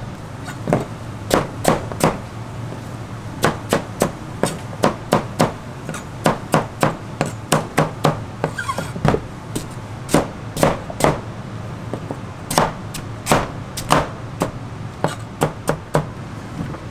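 Cleaver chopping peeled pumpkin on a plastic cutting board: an irregular run of sharp chops, about two or three a second, with a few brief pauses.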